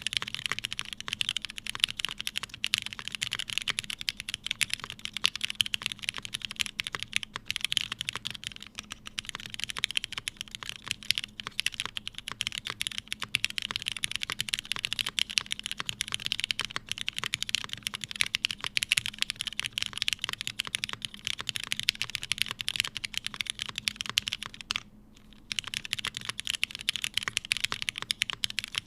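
Continuous typing on an Emery65 mechanical keyboard with lubed Cherry MX Hyperglide Black linear switches in an aluminium plate and GMK keycaps: a dense, unbroken run of keystroke clacks, with a brief pause near the end.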